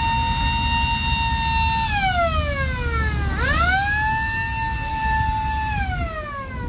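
A siren wailing: a high tone held steady, sliding down about two seconds in, sweeping quickly back up and holding, then sliding down again near the end. A steady low rumble runs underneath.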